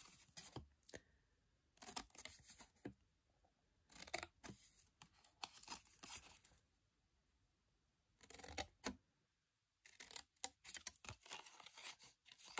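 Small scissors snipping slits into card to free the glue flaps of a box blank: faint, quick snips in several short groups, with pauses between them.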